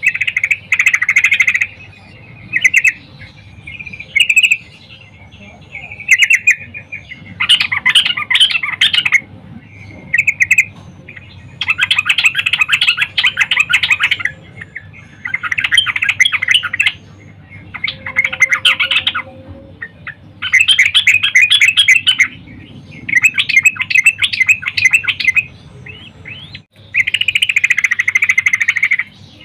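Yellow-vented bulbul (trucukan) singing in about a dozen bursts of rapid chattering notes, each up to two seconds long, with short pauses between them. The uploader presents it as a female calling to males, a song used as a lure to make male bulbuls sing.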